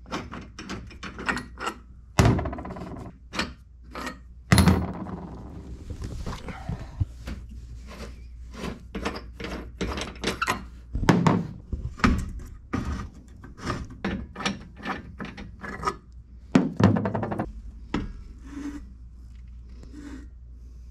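Steel eye bolts being hand-unscrewed from the Superstrut channel that holds a solar panel's aluminium frame to a car roof rack: a dense run of small metal clicks, scrapes and rubbing, with several louder knocks as the panel is loosened and lifted.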